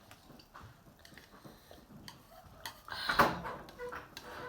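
Quiet eating sounds at a table: scattered light clicks and taps, with one louder brief noise about three seconds in.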